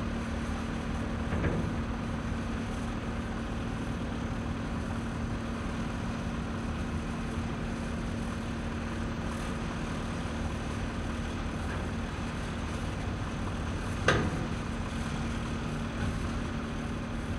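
Ship crane's engine running steadily with a constant hum, with one sharp knock about fourteen seconds in and a fainter one near the start.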